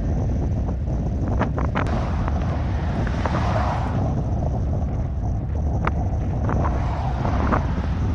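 Wind buffeting the microphone in a steady low rumble, with a few short faint ticks above it.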